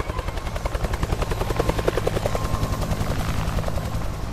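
Helicopter rotor chopping in fast, even pulses over a steady low engine hum.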